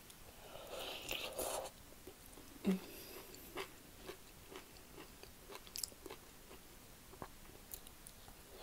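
Close-up mouth sounds of biting and chewing soft broccoli: scattered small wet clicks, with a short breathy puff about a second in.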